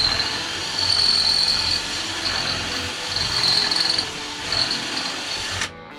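Angle grinder cutting through the metal frame of a jackknife sofa: a steady high whine over a grinding hiss that swells and eases as the cut loads, then stops suddenly near the end.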